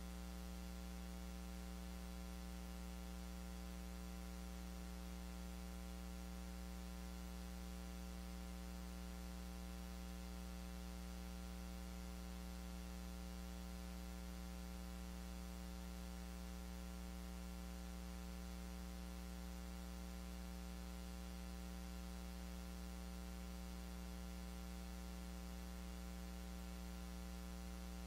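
Steady electrical mains hum: a low hum with a row of higher overtones and a faint hiss over it, unchanging.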